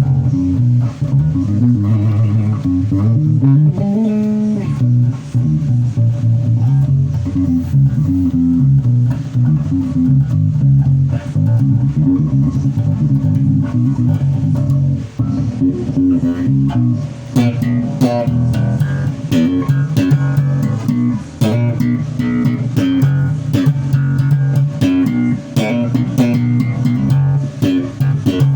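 Bass guitar played for a sound check: a continuous run of plucked low notes, with sharper, clickier attacks from about seventeen seconds in.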